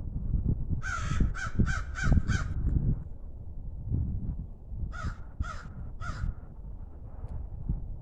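A bird calling: a quick run of five rasping calls about a second in, then four more about five seconds in.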